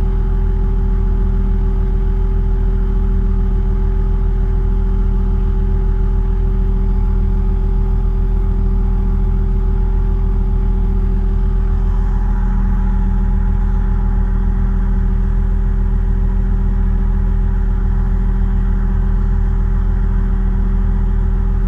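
Diesel engine of a heavy crawler machine running steadily, heard from inside its cab as a loud, even drone with a deep hum; the engine note firms up slightly about halfway through.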